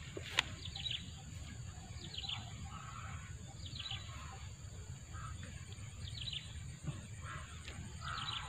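A bird calling over and over: short clusters of quick downward chirps, about five times, every second and a half or so, over a steady high hiss.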